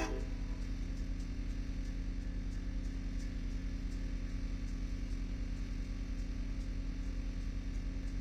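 Amtrak GE Genesis diesel locomotive's engine running with a steady low drone as the locomotive rolls slowly toward the camera.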